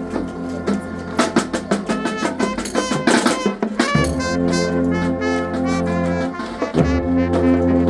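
Brass band playing with drums: held brass chords over drum strikes, the brass pausing briefly about four seconds in and again near the end.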